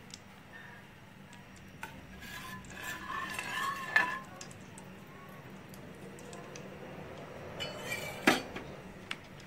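A metal spoon stirring salt into hot oil in a steel pot, scraping and clinking against the pot with a ringing sound; a sharp clink about four seconds in and another near the end.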